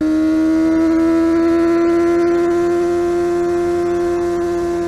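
250cc inline-four four-stroke sport bike engine held high in the revs while riding, a steady high-pitched wail that holds nearly one pitch for about five seconds.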